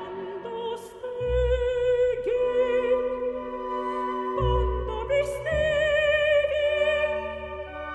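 Classical background music: a voice singing long held notes with vibrato in operatic style, over low sustained accompaniment notes.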